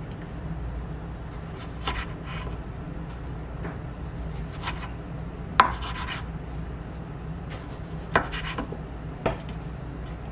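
Kitchen knife slicing through a tomato on a wooden cutting board: soft cutting and rubbing, with the blade knocking on the board a few separate times, loudest about five and a half seconds in. Two more knocks near the end as the knife is set down and the slices are handled.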